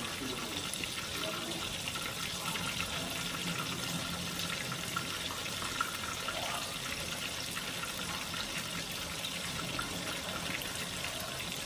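White snapper pieces, dredged in flour, frying in hot oil in a cast-iron skillet: a steady sizzle with fine crackling.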